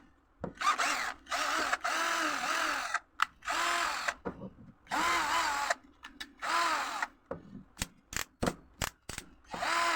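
A 12-volt DC drill is run in short bursts, each spinning up and winding back down in pitch. Near the end come a string of quicker on-off blips of the trigger.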